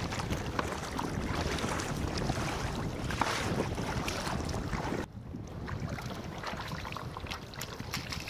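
Sea kayak moving through choppy water: waves slapping and splashing against the hull and paddles dipping, with wind on the microphone. About five seconds in it cuts suddenly to a quieter stretch of gentler water lapping.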